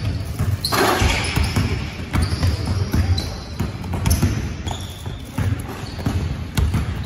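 Basketballs being dribbled on a hardwood court, several at once, as a steady patter of bounces, with short high sneaker squeaks and players' voices calling out.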